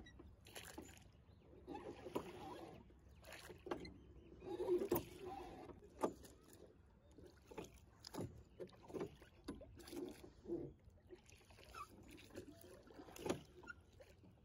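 Oars of a small rowboat working in their metal rowlocks: irregular knocks and clunks with light splashing of water from the blades.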